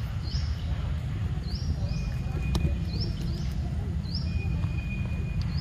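Outdoor ambience: repeated short high chirps, each rising and then levelling off, about one a second, over a steady low rumble, with a single sharp click near the middle.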